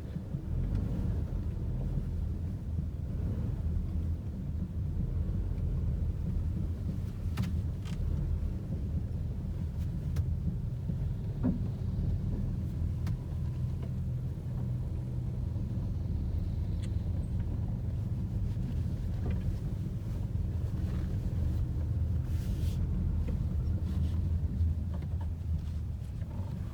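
Car driving, heard from inside the cabin: a steady low engine and road rumble, with a few faint clicks and knocks.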